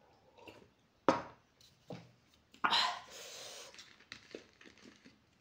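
A woman coughing sharply a few times, the last cough trailing into a long breathy exhale, from the burn of very spicy ramen.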